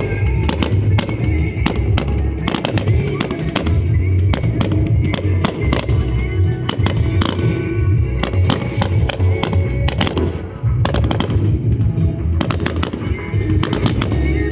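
Rapid fireworks bangs and crackles, several a second, with music playing throughout.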